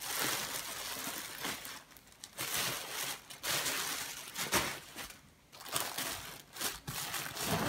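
Clear plastic packaging bags crinkling and rustling as wrapped packs are handled and shifted in a cardboard box. The sound comes in irregular bursts, with short lulls about two seconds in and again around five seconds in.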